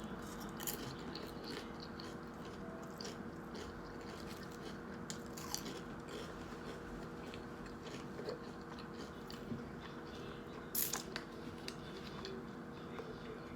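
Close-miked chewing of a grinder salad sandwich: soft, scattered mouth clicks and small crunches, with a louder crunch about three-quarters of the way through.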